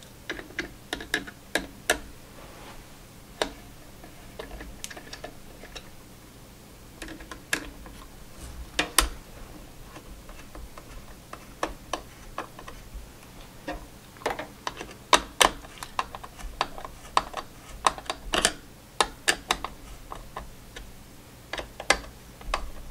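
A screwdriver fastening the mounting screws of a be quiet! Pure Loop 2 all-in-one water cooler's pump block down onto the CPU: irregular sharp clicks and ticks, some in quick runs, busiest past the middle.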